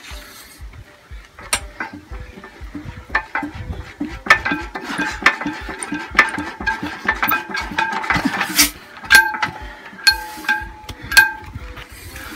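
Imperial Super Diesel hit-and-miss engine being turned over at its flywheel by hand: sharp metallic clinks that ring briefly, over a fast low thudding rhythm that gets busier in the middle.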